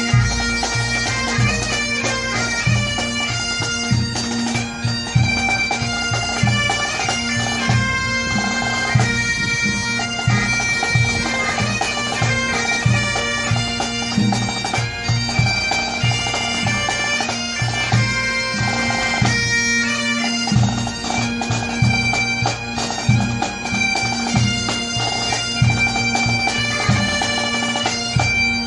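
Bagpipes playing a tune: a steady drone sounds unbroken under a chanter melody that moves quickly from note to note.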